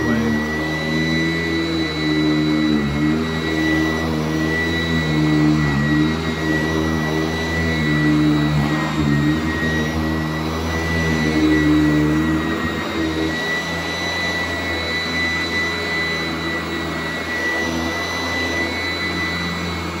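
Sanitaire S675 commercial upright vacuum running continuously on a rug, with a steady high jet-like whine over its motor drone. The lower drone wavers up and down as it is pushed back and forth, then holds steadier for the last several seconds.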